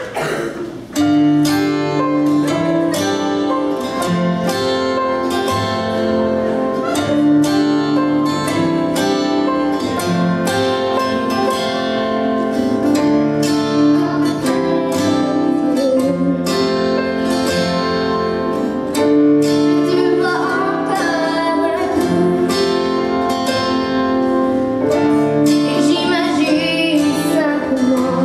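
Live song: plucked guitar accompaniment starts about a second in, and a woman's voice sings into a microphone over it in the later part.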